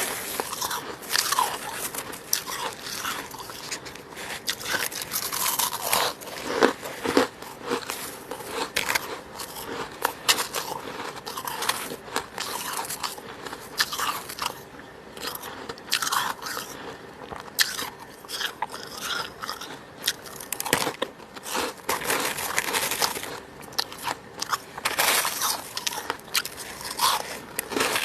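Close-miked crunching and chewing of fluffy freezer frost, frost grown with a humidifier: bite after bite of crisp, crackling crunches with no steady rhythm.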